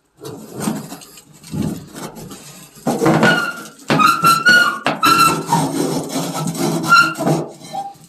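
Rusty metal bar latch being worked by hand: scraping metal on metal, with short high squeaks several times.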